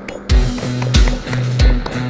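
Background rock music: a heavy kick drum and bass notes hit about every two-thirds of a second, coming in about a third of a second in.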